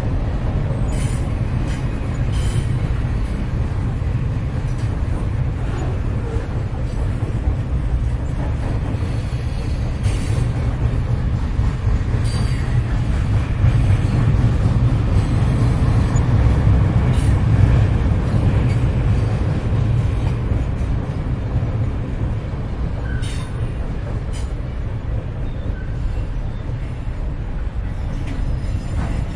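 Train running on the rails: a steady low rumble of rolling rail cars with scattered faint clicks and a few brief high squeaks, swelling slightly about halfway through and easing toward the end.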